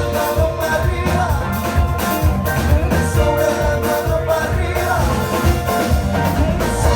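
Upbeat music with a steady beat and heavy bass.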